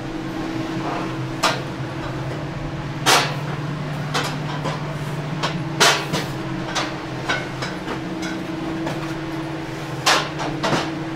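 Glass wine bottles knocking and clinking as they are handled in cellar racks, a series of sharp, irregularly spaced clunks about a second apart. They sound over a steady hum.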